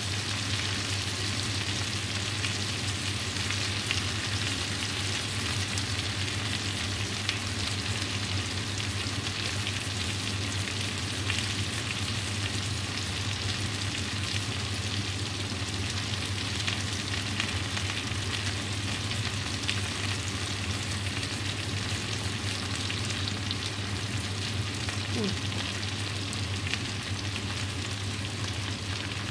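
Fried potatoes with mushrooms and bacon sizzling steadily in hot oil in a frying pan, over a low steady hum.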